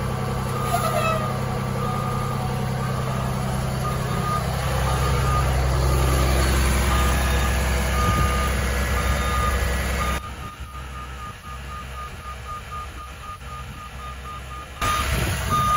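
Bus kneeling-system warning alarm beeping over and over, the beeps coming quicker in the later part, over the idling 5.9 Cummins diesel of a 2004 Blue Bird transit bus. The engine's low rumble drops away sharply about ten seconds in and comes back near the end.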